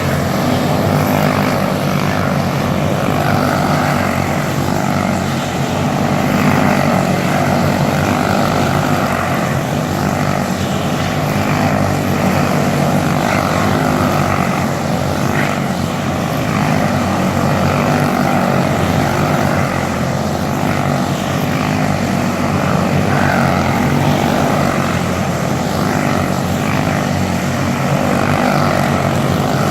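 Loud, steady engine noise.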